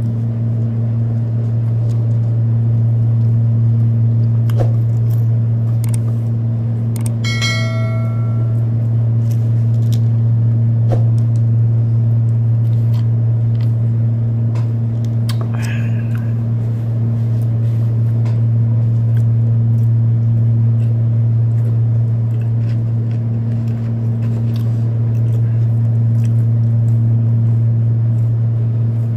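Steady low hum of a room air conditioner throughout, with scattered faint chewing and eating clicks. A brief bell-like chime sounds about seven seconds in, and a short slurp through a straw follows around fifteen seconds in.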